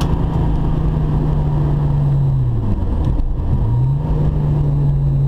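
Volkswagen Golf 3 VR6 engine heard from inside the cabin on track: a steady engine note falls as the car slows, cuts out briefly about three and a half seconds in, then picks up again at a higher pitch, a downshift while braking for a corner. Road and tyre noise run underneath.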